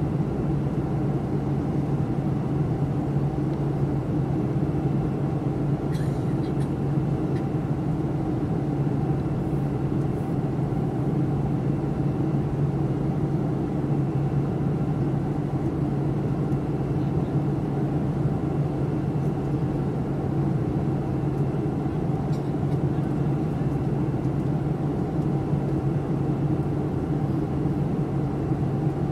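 Steady cabin drone of a commercial passenger airliner in flight: constant engine and air-rush noise with a low hum. A few faint clicks stand out briefly.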